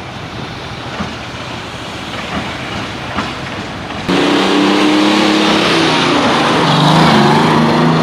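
A steady outdoor noise with a few faint knocks. About four seconds in, an engine comes in suddenly and loudly, running with a pitch that shifts up and down.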